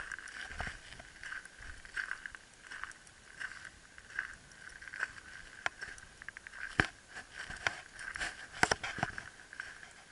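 Footsteps crunching on a shingle beach at an ordinary walking pace, about one and a half steps a second, with a few sharper clicks in the second half.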